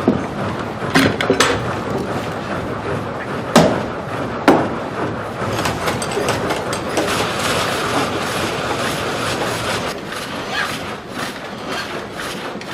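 Continuous clattering rumble of machinery, with four sharp knocks in the first five seconds.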